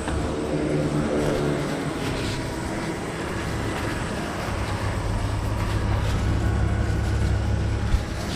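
Car driving: steady engine and road noise, a low rumble that grows louder about halfway through.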